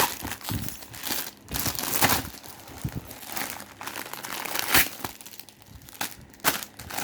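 Paper and packaging crinkling and rustling as order papers are pulled off a cardboard product box, with a few sharper crackles, near 5 and 6.5 seconds in.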